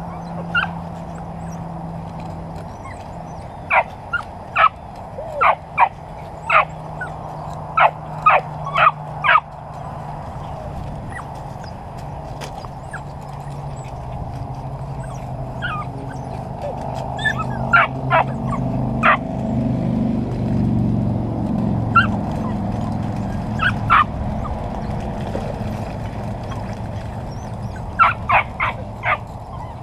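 Dutch Shepherd puppies yipping and barking in quick runs of short, high yelps, several clusters of them, over a steady low hum.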